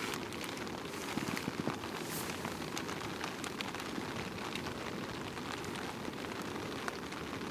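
Rain falling on a Hilleberg tent's nylon flysheet, heard from inside the tent: a steady hiss with many small, irregular drop ticks.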